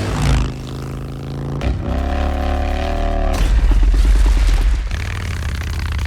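Vintage Harley-Davidson V-twin motorcycle engine revving and running, its pitch rising and then holding, in short snippets that change abruptly every second or two, with a deep low rumble.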